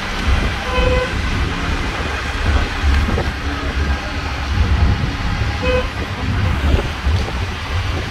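Auto-rickshaw engine running with road and wind noise while riding in traffic. Two short vehicle horn toots, one about a second in and another about five seconds later.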